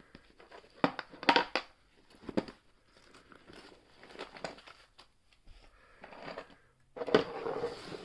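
Hand-made lockpicking tools being handled and sorted: rustling and crinkling with a few sharp clicks about a second in and again near the end.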